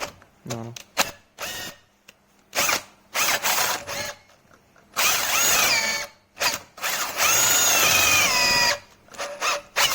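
Cordless drill motor run in a series of short trigger pulses, then two longer runs of about a second and a second and a half. Each time the trigger is released, the whine falls in pitch as the motor spins down.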